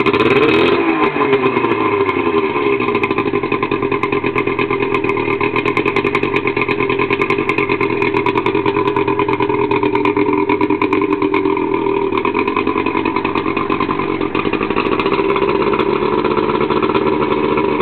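Evinrude 70 hp two-stroke outboard motor running, its speed shifting in the first couple of seconds before it settles into a steady run.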